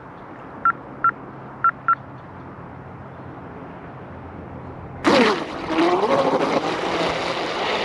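Four short, identical electronic beeps from the RC transmitter as the trim is clicked. About five seconds in, the 36-inch catamaran's 4082 2200kV brushless motor and prop start running hard, loud and sudden, with a whine that rises and falls with the throttle.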